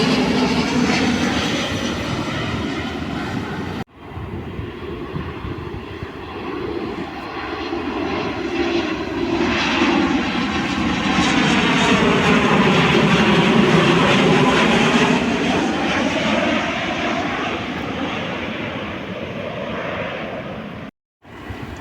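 Airbus A330-200 jet airliner flying low over the spotter on landing approach: engine noise that swells to its loudest about two-thirds of the way through and then fades, with a sweeping, phasing whoosh as it passes. The sound cuts off abruptly about four seconds in and again shortly before the end.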